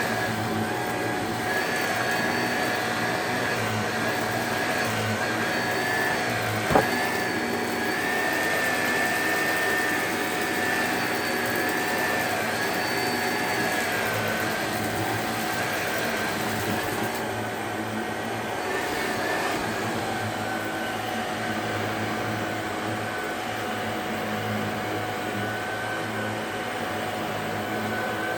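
Shark DuoClean NV801UK vacuum cleaner running steadily, its motor whine wavering slightly in pitch, with a single sharp click about seven seconds in.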